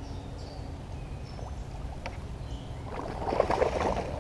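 Hooked largemouth bass thrashing and splashing at the surface beside the kayak for about a second, starting about three seconds in, over a steady low rumble.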